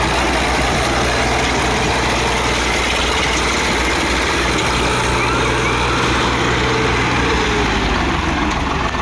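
Swaraj tractors' three-cylinder diesel engines running steadily at low revs, close by, as the tractors roll slowly on a brick road.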